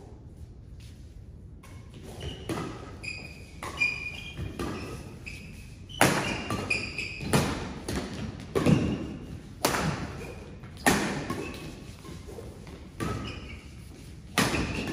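Badminton doubles rally: sharp racket strikes on the shuttlecock, the loudest about every second and a half from around the middle on, with short squeaks of shoes on the court mat between them.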